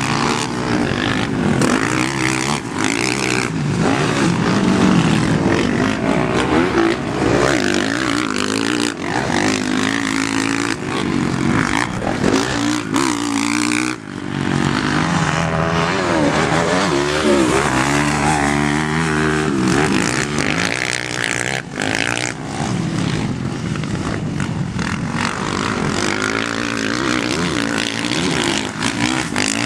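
Dirt bike engine being ridden, revving up and down, its pitch rising and falling with throttle and gear changes. The sound briefly drops about halfway through.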